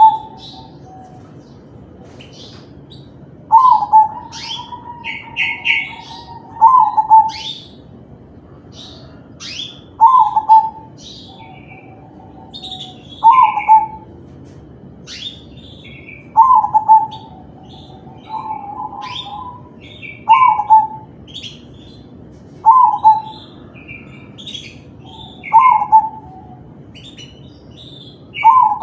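Crossbred zebra dove (perkutut) singing its manggung cooing song: a loud, short cooing phrase repeated about every three seconds. Other small birds chirp faintly between the phrases.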